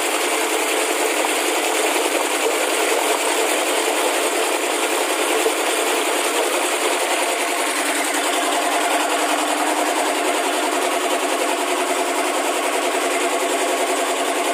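Industrial cake-batter mixer's motor running steadily as it churns batter in a metal drum.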